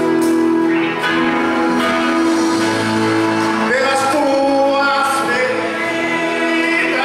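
A man's voice singing a gospel hymn through a microphone and PA, with held, sliding notes over steady instrumental accompaniment.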